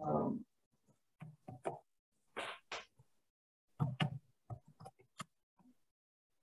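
Scattered light taps and clicks of a stylus on a tablet screen during drawing, with a couple of brief scratchy strokes and a soft thud at the start.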